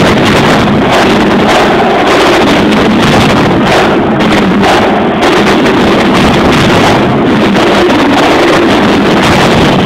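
Marching band playing, recorded so loud that it is heavily distorted into a continuous blare, with repeated drum hits showing through.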